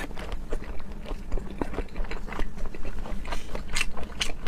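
Close-miked chewing of raw seafood: a quick, irregular run of small wet clicks and smacks from the mouth.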